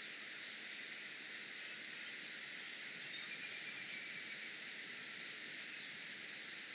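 Steady outdoor background hiss, mostly in the upper range, with no distinct events.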